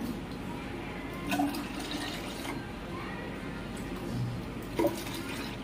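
Water being poured steadily into a plastic water bottle, with two light knocks of the vessels along the way.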